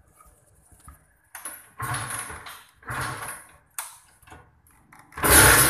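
Kawasaki Ninja 150 RR's two-stroke single running through an aftermarket Akrapovič racing exhaust: several short bursts of sound with quiet between them, then about five seconds in a loud continuous run begins.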